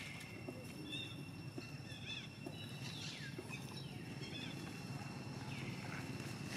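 Outdoor ambience: a steady high-pitched insect drone, with short, high chirping calls about once a second from animals in the trees and a few soft knocks.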